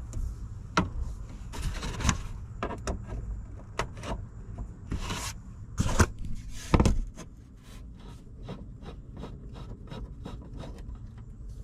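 Plastic dash trim being pulled and worked loose by hand: irregular rubbing and scraping with many small clicks, and a few louder knocks about five to seven seconds in. The piece is held back by rubberized tape behind it.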